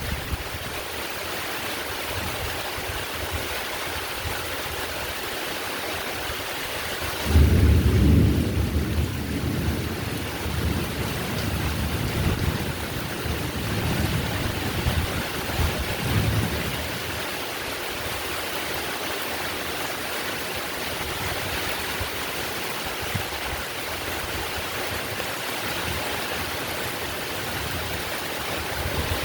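Heavy rain falling steadily as an even hiss. About seven seconds in, a loud rumble of thunder breaks in suddenly and rolls on in waves, dying away after about ten seconds.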